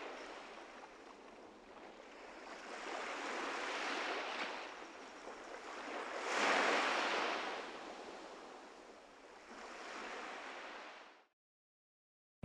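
Small sea waves washing onto a sandy beach, swelling and ebbing every few seconds, with the biggest wash about six and a half seconds in. The sound cuts off suddenly near the end.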